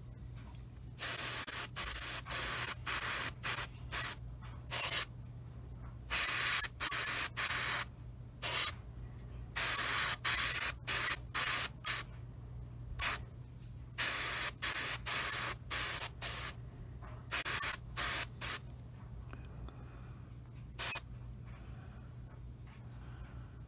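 Gravity-feed airbrush spraying paint onto a model propeller in many short bursts of hiss, each under a second, with pauses between passes. A steady low hum runs underneath.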